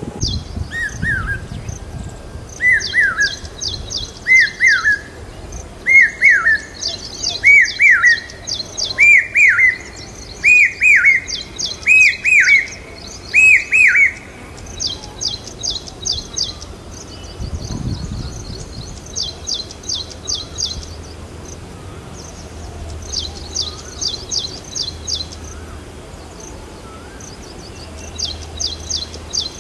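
Common hawk cuckoo (brain-fever bird) calling loud: a run of about nine repeated phrases that climb steadily in pitch and loudness and then break off abruptly, with a new run starting near the end. Another bird's quick, high chattering notes come in short bursts throughout.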